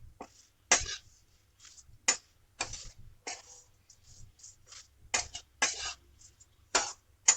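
Spatula scraping and stirring dry poha (flattened rice flakes) in a hot kadhai: a string of short, irregular scrapes and rustles of the flakes against the pan.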